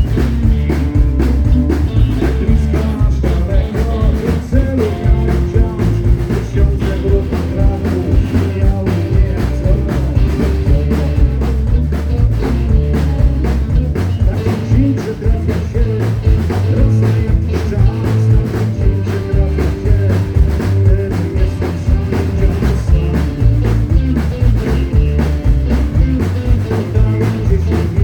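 Live rock band playing: drum kit keeping a steady beat under bass and electric guitar, with a voice singing.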